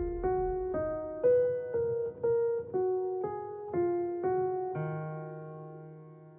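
Background music: a piano melody of single notes, about two a second, ending on a held chord that slowly fades out.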